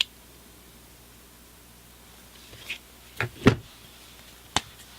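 Handling of a pocket multi-tool: a few sharp metal clicks and knocks in the second half, the loudest about three and a half seconds in.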